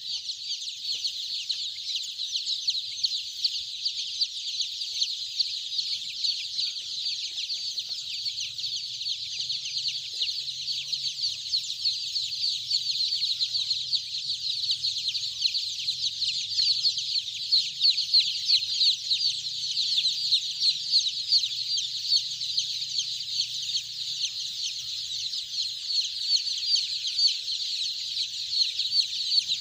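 A large flock of five-day-old Golden Misri chicks peeping nonstop, a dense mass of short, high chirps overlapping with no break.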